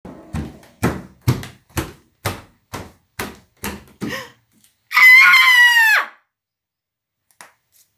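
Footsteps on a hard floor, about two a second, stopping after about four seconds. About a second later, a loud, high-pitched scream lasting about a second that drops in pitch as it ends.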